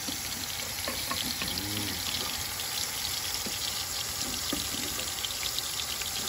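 Pot of sliced shallots and turmeric in hot liquid cooking on a gas burner, giving a steady, even hiss of simmering and sizzling, with a few light ticks.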